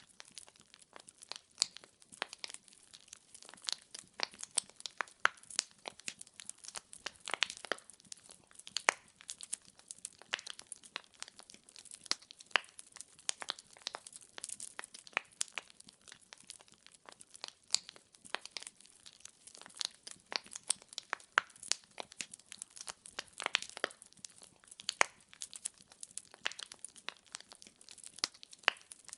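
Wood fire crackling, with a dense, irregular stream of sharp pops and snaps from the burning logs.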